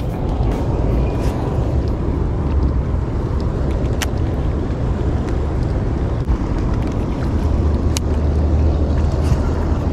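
Wind rumbling on the microphone over the steady rush of a wide river below a dam, with two sharp clicks about four and eight seconds in.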